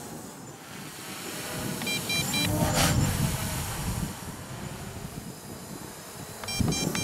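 Strong wind buffeting the microphone, over the faint buzz of the MJX Bugs 3 quadcopter's brushless motors in flight. Two short runs of high electronic beeps come through, about two seconds in and again near the end.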